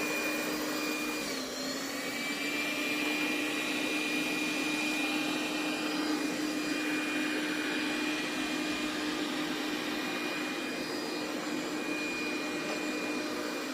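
Cuckoo Power Clone robot vacuum cleaning, its suction motor running with a steady whine. About a second and a half in, the pitch dips briefly and then settles back.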